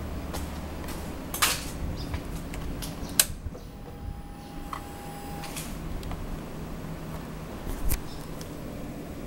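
Handling clicks and knocks on a Honda CB1300 Super Four motorcycle, with a sharp click about three seconds in as the ignition is switched on. A faint steady whine follows for about a second and a half, typical of the fuel-injection pump priming. There is another knock near the end; the engine is not yet running.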